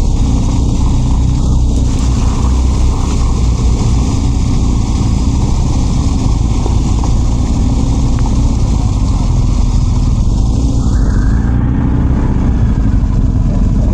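BMW R 1250 GS adventure motorcycle's boxer-twin engine running steadily while riding, with a constant rush of noise over it.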